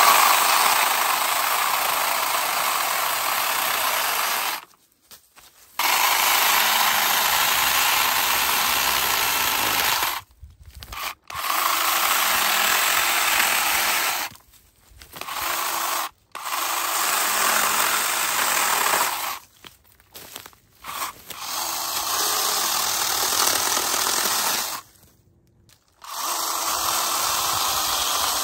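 Bosch EasyChain cordless mini chainsaw cutting through dry branch wood, its chain rasping in runs of a few seconds that stop abruptly between cuts, about eight times.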